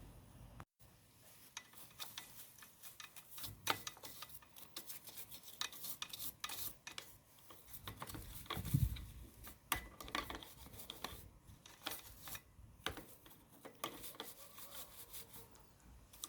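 Faint rubbing and scraping on a bicycle as it is cleaned by hand, with scattered light clicks and knocks and one louder thump about halfway through.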